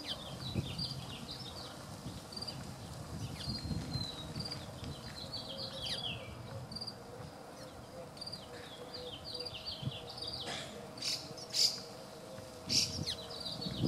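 Small birds chirping: short high notes and quick down-slurred twitters repeating throughout, with two brief, louder harsh rasps near the end.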